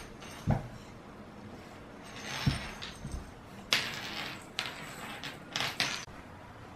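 A cat playing with a string toy on a wooden floor: a few soft thumps and several short scraping swishes against the boards, unevenly spaced.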